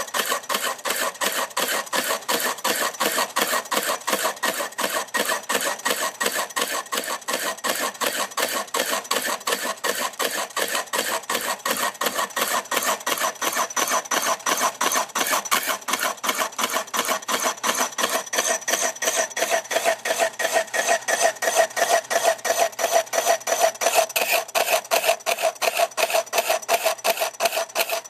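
A turning tool cutting a wooden bowl blank spinning on an old metal lathe: a steady, rhythmic scraping of about four strokes a second, with a ringing tone that drops lower in the second half.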